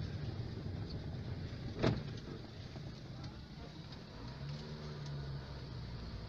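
Car engine and road rumble heard from inside a moving car in city traffic. A short sharp knock sounds about two seconds in, and a low steady drone passes for about a second near the end.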